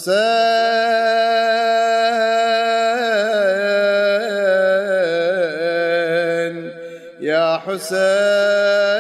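A male radood (Shia elegy chanter) chanting the name 'Husayn' in long, drawn-out held notes into a microphone, with wavering melodic ornaments in the middle. He breaks briefly about seven seconds in for a breath before the next held note.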